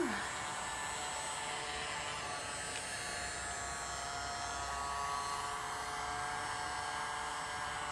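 Small handheld hair dryer running steadily: a motor whine with a few faint steady tones over the rush of air.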